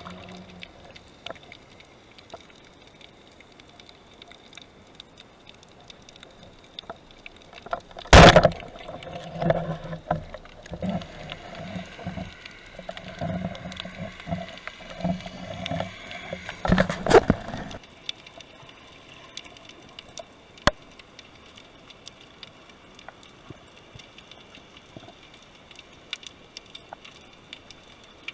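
Underwater sound. One loud sharp crack about eight seconds in, fitting a speargun shot. It is followed by about nine seconds of irregular knocks and rattles from the speared sea bream struggling on the shaft as it is handled, which cut off suddenly. A faint steady underwater crackling runs underneath.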